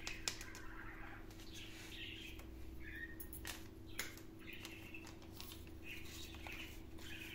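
Light handling sounds as a paper sachet of powder is tipped out into a fine metal mesh sieve: a few faint taps and soft rustles, spread out, over a low steady hum.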